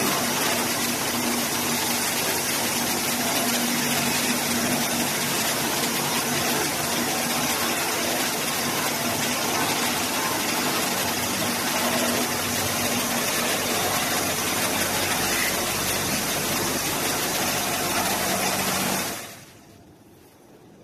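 Touchless car wash machine spraying high-pressure water over a car: a steady hiss of jets and spray with the wash pump's steady hum underneath. It cuts off suddenly about nineteen seconds in.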